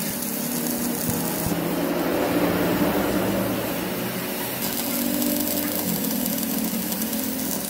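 Electric arc welding on a steel camshaft journal, a steady crackling hiss, with the machine's motor turning the shaft underneath. The arc stops about a second and a half in and strikes again about three seconds later, building weld up on the damaged journal.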